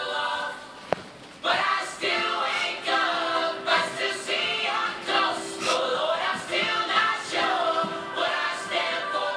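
Background music: voices singing together in a choir, with a brief lull between phrases about a second in.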